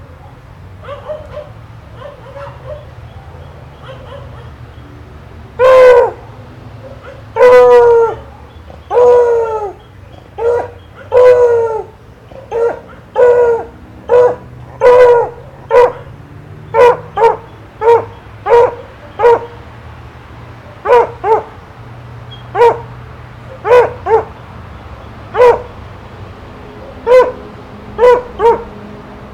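A dog barking: a few faint yips, then several long, drawn-out howling barks, settling into short barks repeated about once a second.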